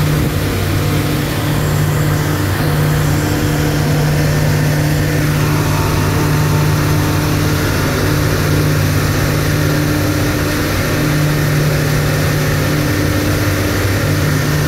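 Engine of a covered pontoon tour boat running steadily under way, heard from aboard as a constant low drone over a steady rushing hiss.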